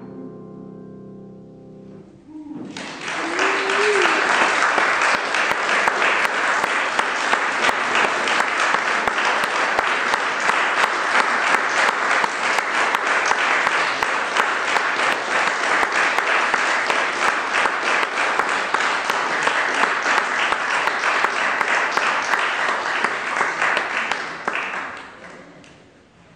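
The last sung note and piano chord of a song die away, then an audience applauds steadily for about twenty seconds, with one voice calling out briefly soon after the clapping starts. The applause fades out shortly before the end.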